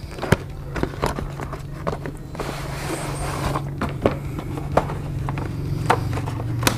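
Cardboard packaging and a foam tray being handled: scattered taps and clicks as the box is opened, with a longer rustling scrape about halfway through as the tray slides out. A steady low hum runs underneath.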